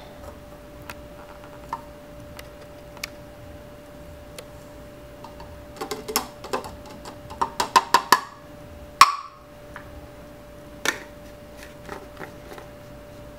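Plastic shaker bottle being put together by hand: scattered light clicks, then a quick run of plastic clicks and rattles past the middle as the stacking compartment and lid are fitted and twisted on, ending in one sharp snap, with another click later. A faint steady hum sits underneath.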